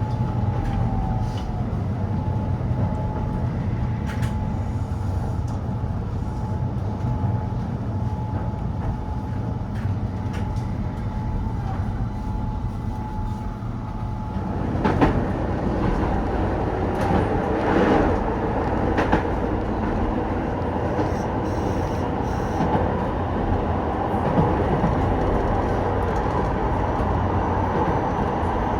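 Keihan 800 series train running on the Keishin Line, heard from aboard: a steady rumble with a thin steady whine at first. About halfway the sound opens out and grows slightly louder, with three sharp clacks from the wheels and track.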